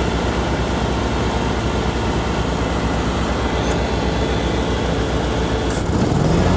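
An engine running steadily with an even low throb. About six seconds in, a stronger engine note with a clearer pitch takes over.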